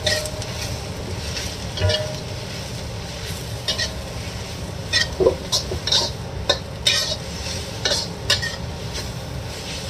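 Metal spatula scraping and clinking against a wok while vegetable strips are stir-fried over a steady sizzle. The clinks come irregularly and crowd together between about five and eight seconds in.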